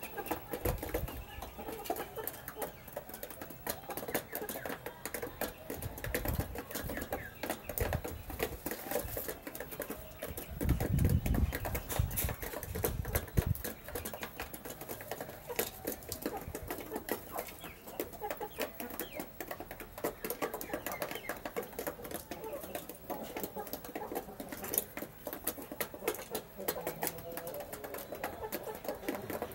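Half-grown chickens pecking feed: a steady, irregular patter of beak taps, with soft clucks here and there. A few dull, louder thumps come about eleven seconds in.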